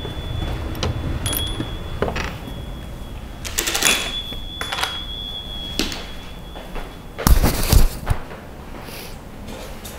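Scattered clicks, clinks and knocks of objects being handled and set down in a small room, with a louder, heavier thump and rattle a little after seven seconds in. A faint high whine comes and goes underneath.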